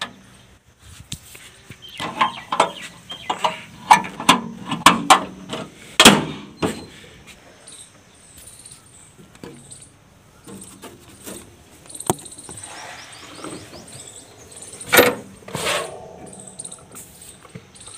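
Scattered clanks, knocks and clicks of a broken tractor chain and tools being handled and put aboard a tractor, busiest in the first few seconds, with one sharp knock near the end.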